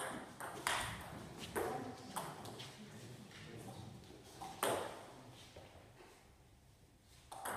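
Table tennis ball clicking sharply off the bats and the table in a fast doubles rally: a quick string of hits in the first couple of seconds, a pause, then another sharp hit a little past halfway.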